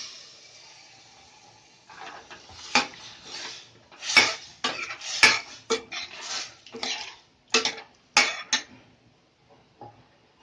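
A metal spoon stirring in a kadai, scraping and clanking against the pan in a run of sharp strikes, as boiled mutton and its stock are mixed into the tempered spices. A sizzle from the pan dies away in the first couple of seconds.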